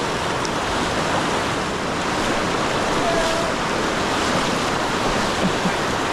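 River water rushing steadily around a wading angler, a constant hiss of current with some wind on the microphone.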